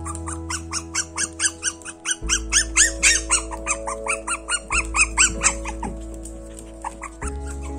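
Young puppies whining and yipping in quick high-pitched cries, several a second, loudest midway and thinning out near the end. Background music with steady held notes plays underneath.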